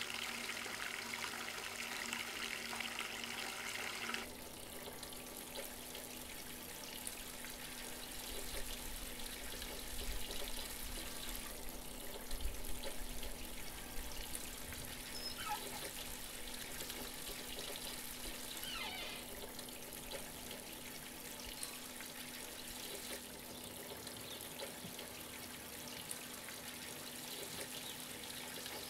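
Water running from a bath mixer tap into a filling bathtub as a steady hiss, cut off sharply about four seconds in. After that, quieter running water with small household sounds continues over a faint steady hum.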